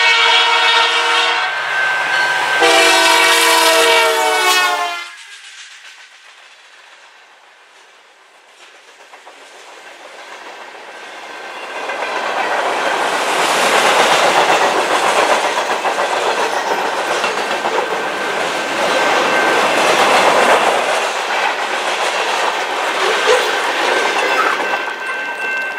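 Horn of a Canadian Pacific GP20C-ECO diesel locomotive leading a local freight: two loud blasts, the second about two and a half seconds long. After a lull, the freight cars rumble past with a steady clickety-clack of wheels over the rail joints from about twelve seconds in.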